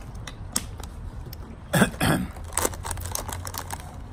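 Drinking from a plastic water bottle: two loud gulps close together about halfway through, followed by light crinkling of a foil snack bag as a hand goes into it.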